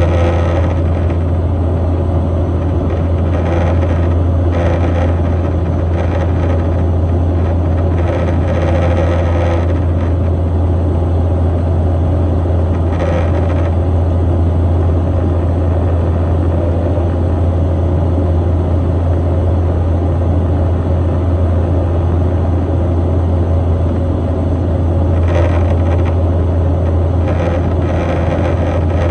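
Propeller airliner cruising, heard from inside the cabin: a loud, steady deep hum from the turboprop engines and propellers over an even rush of air.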